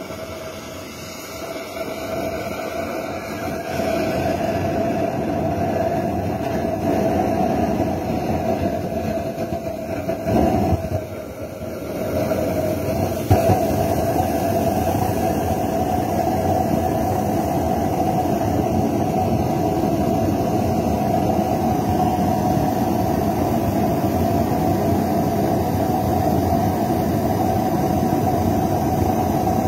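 Homemade diesel burner, a paint spray gun blowing atomized diesel into a perforated steel pipe, burning with a steady rushing flame noise. It builds over the first few seconds, falters briefly about ten to twelve seconds in with a sharp click just after, then runs steady.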